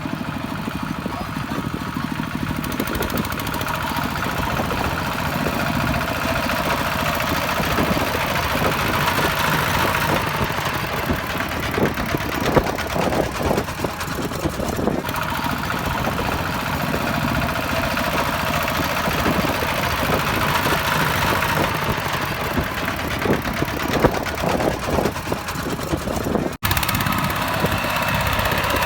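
Diesel engine of a farm tractor running steadily with a knocking clatter, sharper knocks coming in clusters around the middle and near the end. The sound breaks off for an instant shortly before the end.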